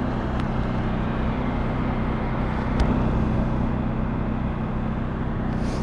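Steady low engine hum of a pressure washer running, with a single sharp click about three seconds in.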